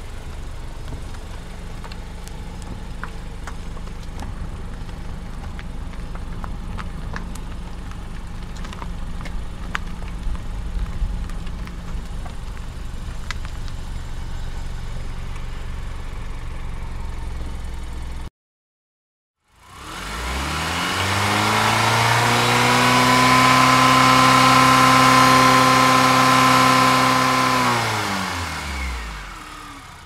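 Car driving: a steady low engine and road rumble with a few light ticks, which cuts off about two-thirds of the way in. After a second of silence, a louder car engine fades in, its pitch rising, holding steady, then dropping as it fades away near the end.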